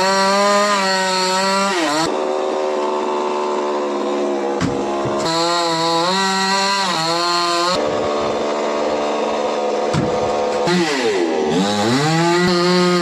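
Chainsaw cutting a coconut palm trunk, its engine revving up to high speed and dropping back to a lower speed three times, with brief dips in pitch as the speed changes.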